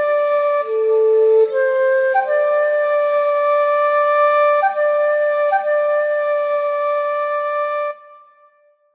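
Solo flute music, breathy and slow: a few long held notes, the pitch shifting a little in the first two seconds and then held on one note, stopping about eight seconds in.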